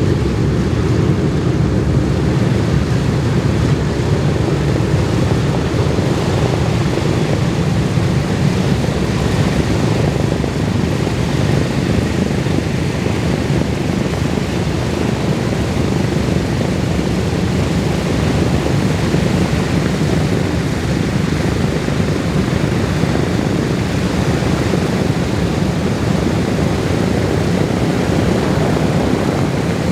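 The B-17G Flying Fortress's Wright R-1820 Cyclone radial engines running steadily, a loud, even, deep propeller-aircraft drone with no change in pitch.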